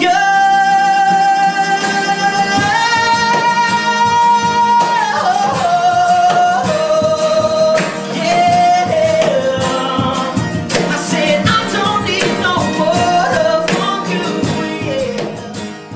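Live acoustic pop-rock song: several strummed acoustic guitars under a male lead voice that holds a long high note, steps it up, then sings a falling melodic line. The music dies away near the end.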